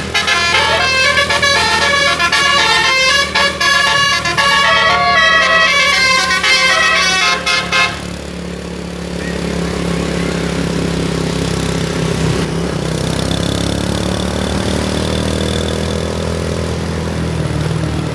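Bus 'telolet' Basuri multi-tone air horn playing a quick tune of changing notes, cutting off suddenly about eight seconds in. After that only the bus's engine is heard, a low steady running.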